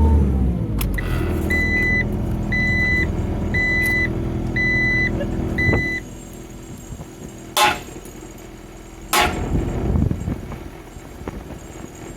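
New Holland L220 skid steer's engine running while its reverse alarm beeps five times, about one and a half beeps a second. After the beeping the engine is quieter, and two sharp knocks follow.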